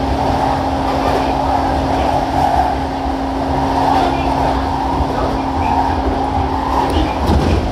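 Running noise inside the motor car of a JR E233 series 7000-number electric train (MoHa E232) travelling at speed: steady wheel-on-rail rolling noise with a constant hum underneath, and a few short clicks near the end.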